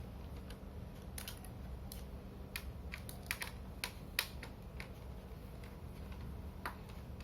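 Scattered light plastic clicks and taps from a laptop's parts being handled, irregular and a second or so apart, over a faint low hum.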